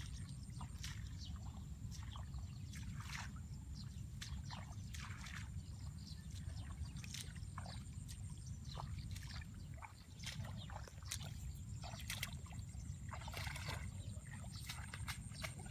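Water splashing and sloshing in many short, irregular splashes over a steady low rumble.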